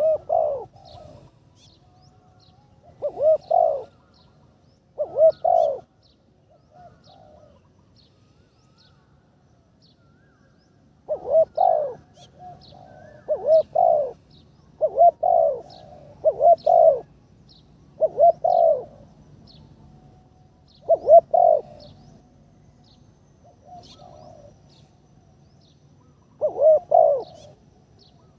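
Spotted dove cooing: about ten loud coo phrases, several of them doubled, coming in uneven runs with gaps of several seconds between some of them.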